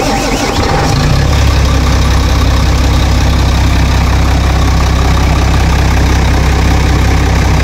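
Diesel engine of a Howo 380 A7 heavy truck idling, settling into a steady, even idle about a second in after being started, its fuel system just bled at the injectors to cure a hard-start and stalling fault.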